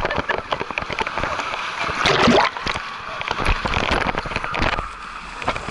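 Pool water splashing and sloshing right at the camera, with a louder rush of splashing about two seconds in.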